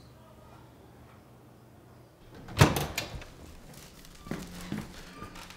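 An apartment door is unlatched and opened: a loud clack about halfway through, then a few lighter knocks and rattles as it swings.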